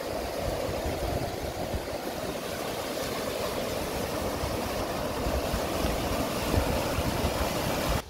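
Mountain stream rushing in white water through channels worn into granite bedrock: a steady, even rush of water.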